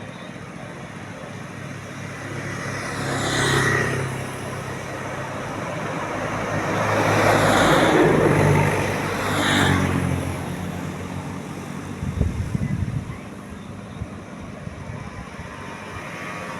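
Road traffic: vehicles passing close by one after another over a steady engine hum, with three swells of engine and tyre noise, the loudest about halfway through.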